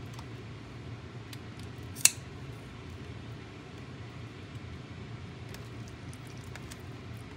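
Kitchen scissors cutting into a raw fish: scattered light clicks of the blades, with one sharp snap about two seconds in, over a steady low hum.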